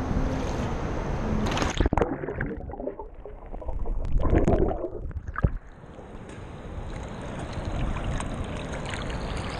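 Shallow ocean surf and sloshing water; about two seconds in the sound turns muffled and gurgling as the microphone dips under the water, with a louder surge of water a couple of seconds later.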